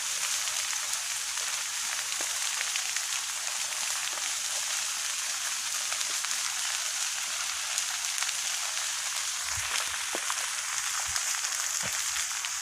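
Vegetation fire burning: a steady hiss with many small crackles and pops. A few soft low thumps come near the end.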